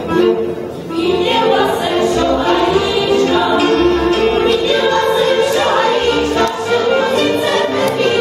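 Women's folk choir singing a Moravian folk song together, the voices coming in fully about a second in, with the fiddles and clarinet of a folk band accompanying.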